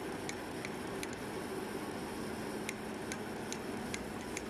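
Pulse EDM sparking under dielectric oil, with irregular sharp clicks a few times a second over a steady low hum. The erosion is DC-arcing, a poor spark pattern.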